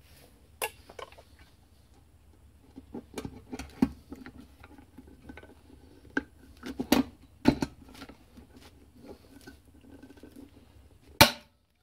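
Hand pop-rivet gun setting pop rivets in a painted rocker cover: repeated clicks and clacks as the handles are squeezed, with a few louder snaps, the loudest and sharpest just before the end as a rivet's mandrel breaks off.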